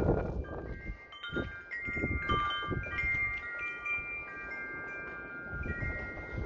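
Wind chimes ringing in gusty wind, several clear tones struck and overlapping as they ring on. Wind buffets the microphone with a low rumble at the start and in a few shorter gusts after.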